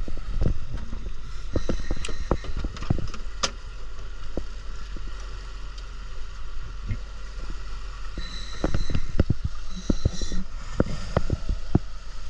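Spearfishing gear being handled on a boat deck: irregular clunks and knocks, thickest about two-thirds of the way in, over a steady low rumble.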